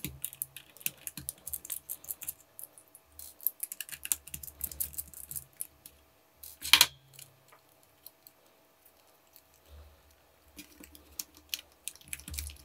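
Small clicks, taps and scrapes of hands and a precision screwdriver working on a plastic baby monitor camera housing while its circuit board is prised out, with one sharp, louder click about seven seconds in.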